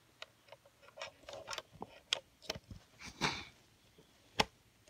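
Scattered clicks, taps and brief rustles of a power cord and plug being handled and plugged in, with one sharp click near the end.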